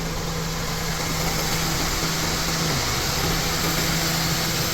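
Steady mechanical running, most likely the car's engine idling, with an even hiss over it and a low hum that dips briefly about halfway through.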